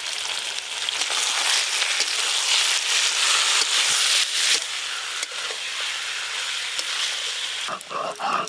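Chicken pieces frying in hot mustard oil in an iron kadai, a steady sizzle, with a metal spatula stirring and scraping against the pan.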